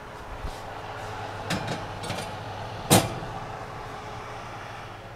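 A glass casserole dish being put into an oven: a few light knocks, then one sharp clink about three seconds in as it goes down on the metal oven rack, over a steady hum.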